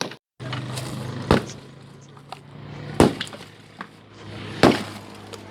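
Demolition blows breaking up a building: three heavy strikes, about one every second and a half, each followed by crumbling and cracking debris, over a steady low hum.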